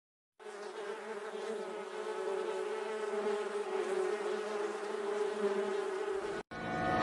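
Swarm of bees buzzing in a steady drone that grows a little louder, then cuts off abruptly shortly before the end.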